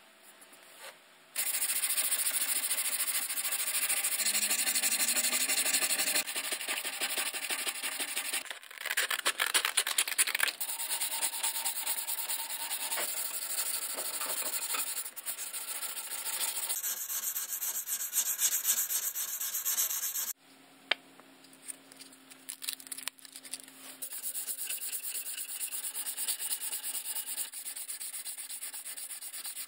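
Faint felt-tip marker writing on the metal, then 240-grit sandpaper on a rubber sanding block rubbed back and forth over a steel axe head, a dense scraping that starts abruptly about a second and a half in. The sanding breaks off and restarts several times, and is quieter after about twenty seconds.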